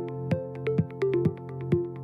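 Electronic background music with a synthesizer melody over a steady drum-machine beat of roughly two hits a second.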